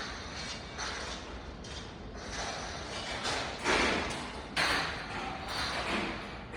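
Train passing over a level crossing: a run of irregular knocks and rushes of noise, the loudest about halfway through.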